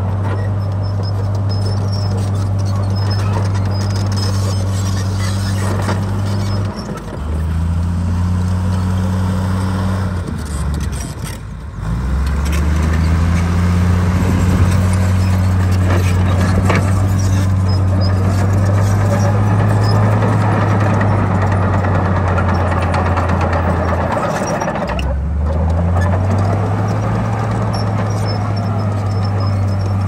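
Heavy diesel engine of earthmoving machinery working, its deep steady note dropping and rising again several times as the load and revs change, with a brief lull about eleven seconds in.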